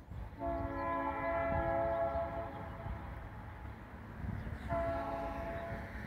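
Diesel locomotive air horn, a GE B23-7 of the Finger Lakes Railway, sounding a chord of several notes: one long blast of about two seconds, then a short blast near the end. A low rumble of the train runs beneath.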